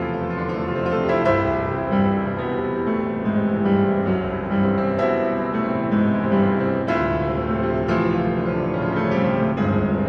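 Instrumental background music led by piano, with sustained notes and new chords struck every second or so.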